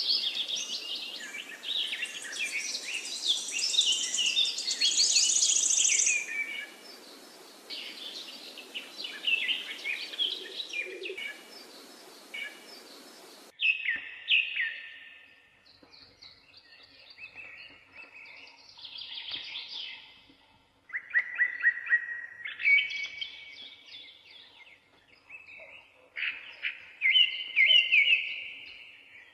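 Wild birds chirping and singing, many overlapping short calls and trills over a steady hiss. The hiss cuts off suddenly about halfway through, after which the bird calls come in separate, sparser phrases.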